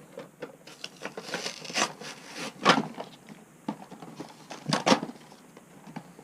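Plastic and card toy packaging being opened by hand: irregular crinkling and rustling, with two louder sharp crackles a little under three seconds in and near five seconds in.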